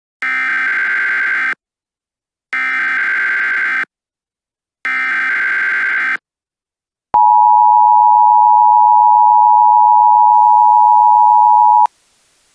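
Emergency Alert System tones. First come three identical bursts of SAME header data, a buzzy digital warble of about a second and a half each with short gaps between. Then the EAS two-tone attention signal, a steady tone just under 1 kHz, holds for about five seconds and cuts off abruptly.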